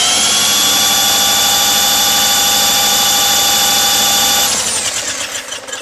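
Electric drill with a socket on the flywheel nut, spinning over a Craftsman 4.5 lawn mower engine: a steady, high drill whine that winds down about four and a half seconds in. The engine turns over without catching, its gas supply shut off.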